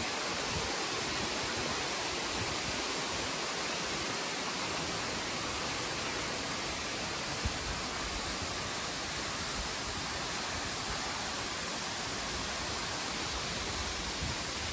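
Steady rushing of falling water, a waterfall or cascade on a rainforest creek.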